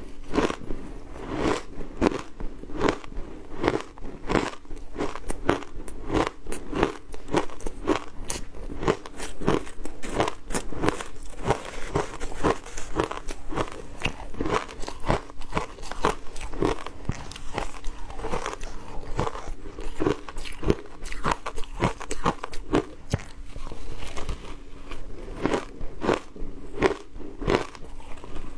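Crushed ice dusted with matcha powder being bitten and chewed close to a clip-on microphone: a steady run of sharp crunches, about two to three a second.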